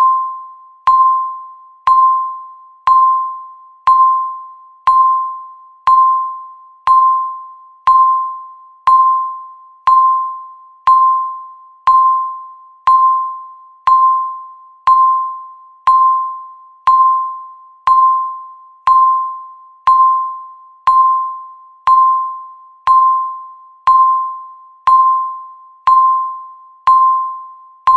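Countdown timer beep: one single-pitched electronic beep every second, each starting sharply and fading away before the next, marking off the seconds.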